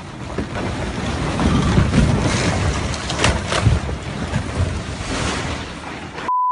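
Loud rushing, rumbling noise of wind buffeting the microphone. Near the end it cuts off suddenly and a steady, single-pitched beep tone begins.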